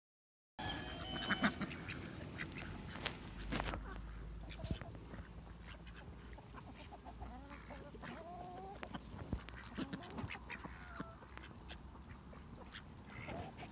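A flock of domestic ducks and chickens feeding on scattered grain: the ducks give short quacking calls, mostly in the middle stretch, over a steady run of small sharp clicks of beaks pecking at the grain.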